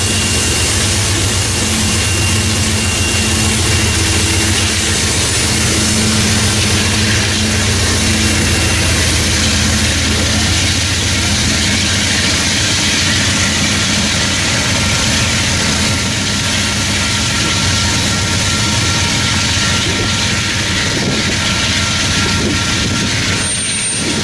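Union Pacific diesel-electric locomotives at the rear of a coal train running under power as they pass and pull away, a steady heavy engine drone.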